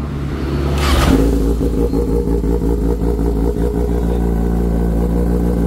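Kawasaki Ninja sportbike's inline-four engine starting on the electric starter about a second in, then idling steadily through an aftermarket titanium exhaust.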